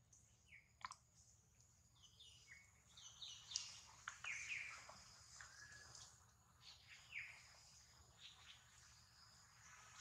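Faint bird chirps: a scatter of short, falling high calls over a faint steady high-pitched hum.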